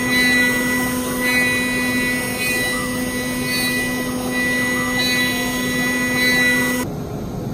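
Stepcraft CNC router's spindle running with a steady high whine while its 1/8-inch down-cut spiral foam bit pockets into foam with conventional milling, the setting that gives a clean cut in foam. The loudness swells a little every second or so as the bit moves through the cut, and the sound cuts off suddenly near the end.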